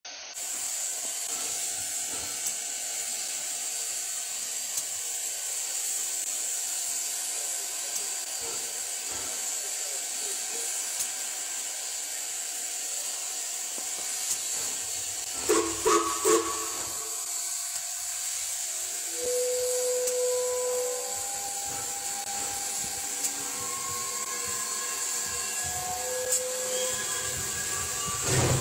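Pere Marquette 1225, a 2-8-4 Berkshire steam locomotive, hissing steadily as it vents steam. Three short, loud tooting blasts come about halfway through.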